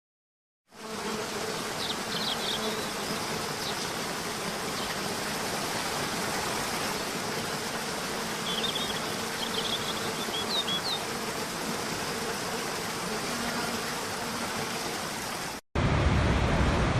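Steady rushing of a waterfall, with a few short bird chirps a couple of seconds in and again past the middle. Near the end it cuts off and a louder, deeper rush of water takes over.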